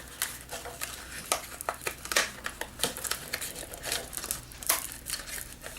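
Irregular crinkling and crackling of packaging being handled and worked open around a bottle of liquid foundation.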